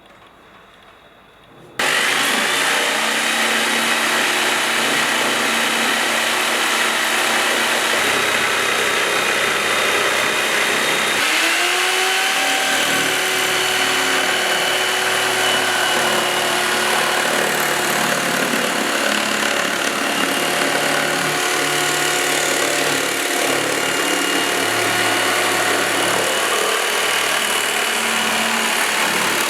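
GALAX PRO electric jigsaw switched on about two seconds in, its motor whine climbing quickly and then running steadily as it saws through wood. About eleven seconds in the motor pitch dips and climbs again, and it runs on.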